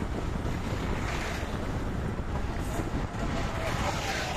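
Steady wind noise buffeting the microphone of a phone carried on a moving motorcycle, a continuous rushing rumble.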